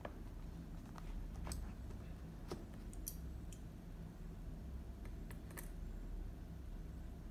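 Scattered light clicks and taps from handling a tablet's cardboard box on a desk and laying a stylus pen on top of it, over a steady low room hum.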